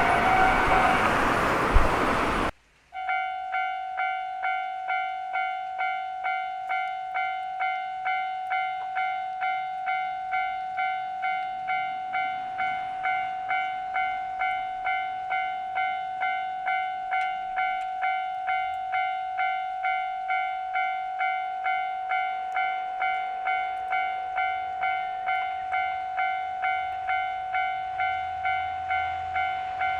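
Japanese railroad crossing alarm ringing its electronic 'kan-kan' bell in even strokes, just under two a second. Before it, a train runs loudly for about two seconds and cuts off abruptly. A low rumble builds near the end as a train approaches.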